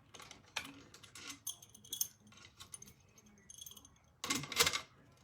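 Small metal parts clicking and clinking as frame screws are tightened by hand during machine assembly, with a louder brief clatter about four seconds in.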